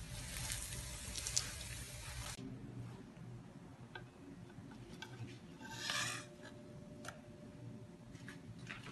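Yufka börek frying in an oiled cast-iron pan over a gas flame: a steady soft sizzle with a low burner hum, as a silicone spatula works around its edge. The sound cuts off about two seconds in, and the rest holds light clicks and one brief crisp rustle as the flaky, crisp pastry is cut and a slice lifted on a wooden board.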